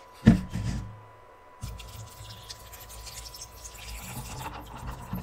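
A paper cup holding ice is set down on the table with a knock, then water is poured into it from a plastic bottle: a steady pour from about a second and a half in.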